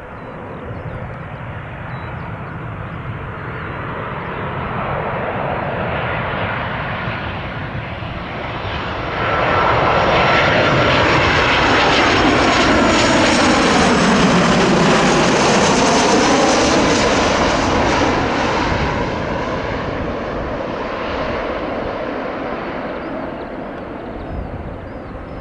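Airliner on landing approach passing low overhead: its engine noise builds, jumps up sharply about nine seconds in, stays at its loudest with a sweeping, phasing whoosh, then fades away over the last several seconds.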